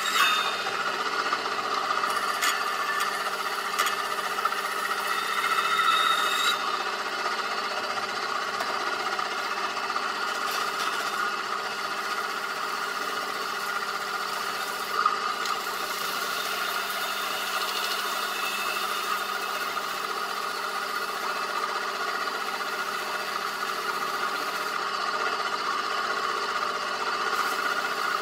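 Crash cymbal spinning on a homemade motor-driven lathe while a hand file and then an abrasive pad are held against it, giving a steady ringing, scraping drone. The brighter scraping eases off about six seconds in.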